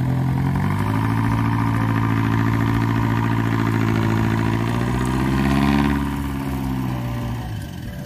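Engine of a small cab-over pickup truck running as it drives slowly across a ploughed field. Its pitch rises about a second in and again around five to six seconds, then drops and fades near the end.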